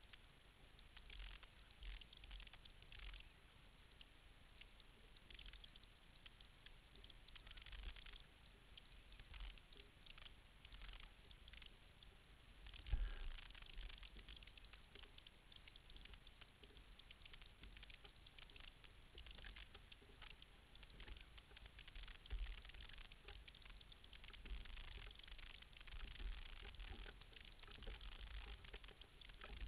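Faint, irregular splashing and pattering of water along a sailboat's hull under way, with uneven low wind buffeting and one louder knock about 13 seconds in.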